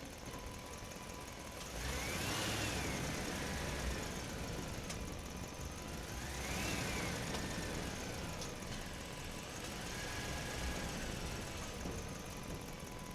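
A car driving through a parking garage, its engine running steadily. Three high squeals are heard, typical of tyres on a smooth garage floor through the turns: the first two rise and then fall in pitch as the engine swells, and the third is fainter and steadier.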